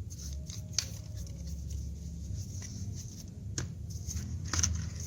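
A brush scrubbing the oily engine block of a Vespa PX with a vinegar, dish-soap and petrol cleaning mix: irregular scratchy strokes with a few sharp clicks.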